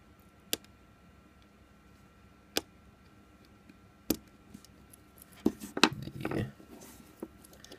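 A small flathead screwdriver tip clicking against a Pebble smartwatch's metal strap spring bar and plastic lugs while prying the strap off. There are single sharp clicks about half a second, two and a half and four seconds in, then a quick run of clicks and scraping around five and a half to six and a half seconds as the strap comes free.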